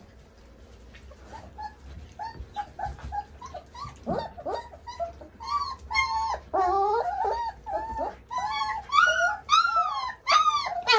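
Three-week-old Mioritic shepherd puppies whining and yelping at feeding time: short arched cries that start faint and sparse, then grow louder and come more often from about four seconds in, with several pups crying over one another.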